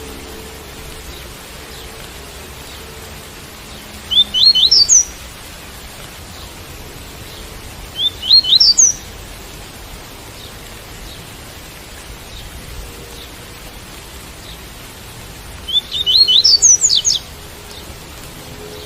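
Double-collared seedeater (coleiro) singing the tui-tui song in three short phrases of quick, high, upward-sweeping notes, about four, eight and sixteen seconds in, over a steady hiss of rain.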